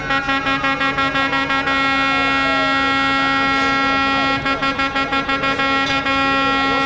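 Vehicle horns: one long, steady horn blast held throughout, with rapid toots of about six a second over it near the start and again about four seconds in.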